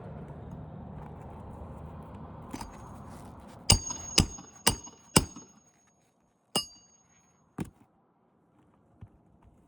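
Sharp metallic strikes with a brief high ring: four about half a second apart, then two more about a second apart, after a low rumble fades away.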